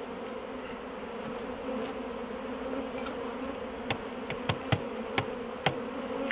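Many honeybees buzzing around an opened hive, a steady hum holding one pitch, with several sharp clicks about four to six seconds in.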